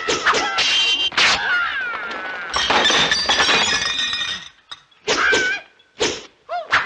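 Kung fu film fight sound effects: a rapid run of sharp staff-on-staff clacks, then a long crash of something breaking about two and a half seconds in. Short yells follow near the end.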